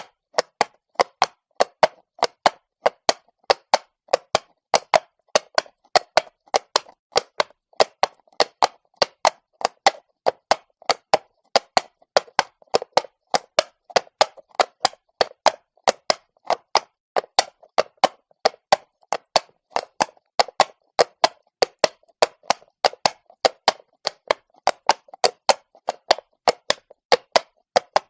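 Horse's shod hooves walking on cobblestones: a steady train of sharp clops, about three to four a second in the uneven four-beat rhythm of a walk.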